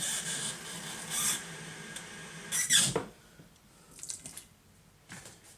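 Water running from a kitchen tap into a measuring cup for about three seconds, then stopping. A few faint knocks follow.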